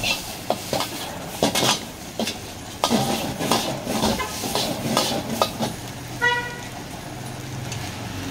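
Metal ladle and spatula clanking and scraping against a steel wok as noodles are stir-fried, over the steady roar and sizzle of a gas wok burner. About six seconds in, a short horn-like tone sounds once.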